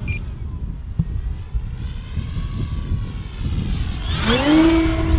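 E-Flite Extra 300 3D electric RC plane's motor and propeller whining faintly in flight over heavy wind rumble on the microphone; about four seconds in the motor throttles up, its whine climbing sharply and then holding steady and louder.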